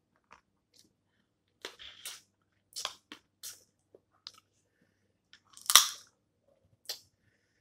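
Snow crab legs being cracked and eaten: a scattered series of sharp shell cracks and crunches with chewing, the loudest crack nearly six seconds in.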